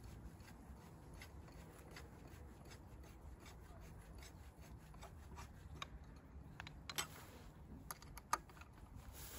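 Faint metallic clicks and light scraping of a combination wrench turning the screws that fasten a plastic blade deflector to a brush cutter's gearhead, with two sharper clicks in the second half.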